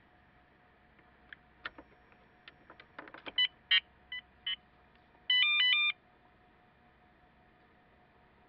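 Valentine One radar detector beeping: a few clicks of handling, then several short electronic beeps, then a rapid warbling two-tone sequence lasting under a second.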